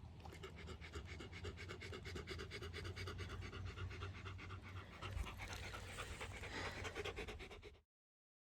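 A dog panting fast and steadily, close to the microphone. The sound cuts off suddenly near the end.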